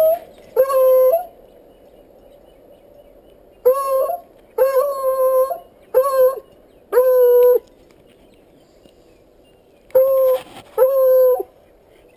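Coonhound baying on a cat's scent: about seven loud bawls, each held on one steady note for half a second to a second, with a pause after the first and another before the last two.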